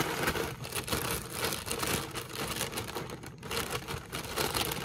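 Clear plastic cereal bag liner crinkling and crackling as it is handled and pulled open, with many sharp little crackles.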